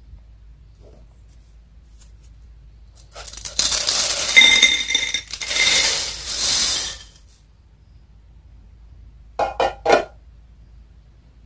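Crisp, dry-fried instant noodles pouring from a metal pot onto a ceramic plate: a dense rattling clatter for about four seconds, with a faint ringing tone under it. About ten seconds in come three quick sharp knocks.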